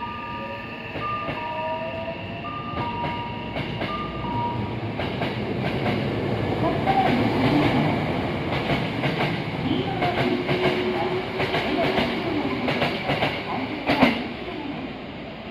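Hankyu 9000 series electric train pulling away from the station: a motor whine rises in pitch as it starts to accelerate, then the wheels click steadily over the rail joints as the cars go by, with one loud clack near the end before the sound fades.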